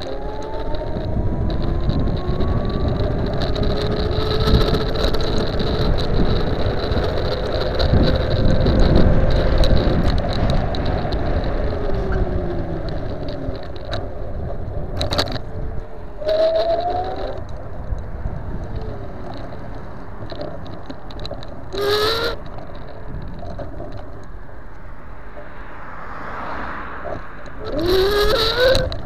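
Custom dual-motor 48 V electric scooter being ridden on a road: steady wind buffeting and tyre rumble, with the motors' whine rising in pitch in short bursts of acceleration, three times in the second half.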